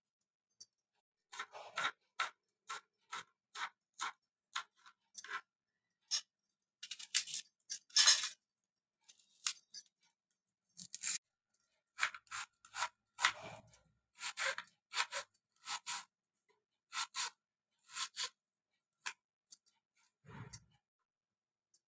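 Kitchen knife cutting onion and green chillies down onto a plastic cutting board: separate sharp knocks at irregular spacing, about one or two a second, with short quiet gaps between them.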